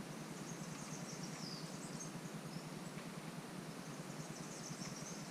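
Outdoor ambience: a steady low background hiss with faint, scattered high-pitched bird chirps.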